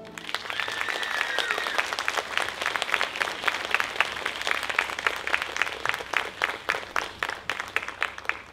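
Audience applauding as the music ends, many hands clapping with single claps standing out and the applause thinning and fading near the end. About a second in, one high held cheer sounds over the clapping and drops in pitch as it stops.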